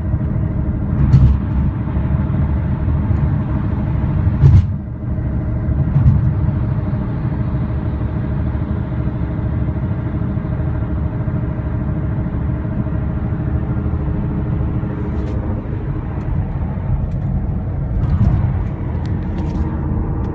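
A 2011 BMW E93 M3 cruising, heard as a steady low rumble with a constant drone of several pitched tones. This is the unidentified noise that starts around 15 mph and grows louder with road speed; the wheel bearings have been checked and appear okay. A few brief knocks come through, about a second in, around four and six seconds, and several near the end.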